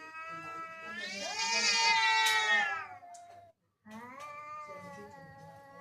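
A cat making two long, drawn-out meows, the first swelling louder before it stops about three seconds in, the second quieter and held steady after a short break.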